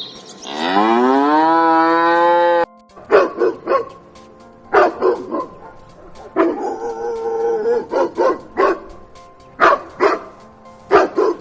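A cow moos once, a long call that rises in pitch and then holds for about two seconds before cutting off. Then a dog barks repeatedly in quick groups of two or three barks.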